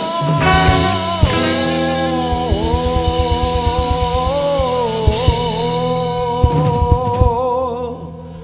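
Live rock band with electric guitars, drum kit and saxophone playing with singing, a long note held for several seconds over a steady drum beat. The music dies away near the end.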